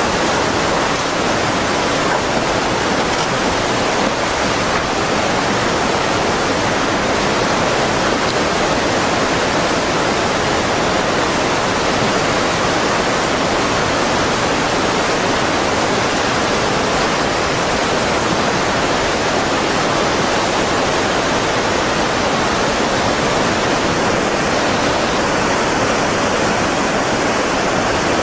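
Tsunami floodwater rushing in a steady, loud torrent, an unbroken roar of moving water. A faint high whine comes in near the end.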